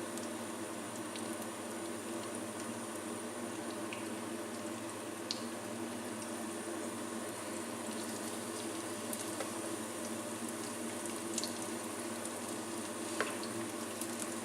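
Panko-crumbed duck schnitzels frying in a pan: a steady sizzle with a few faint pops, over a steady low hum.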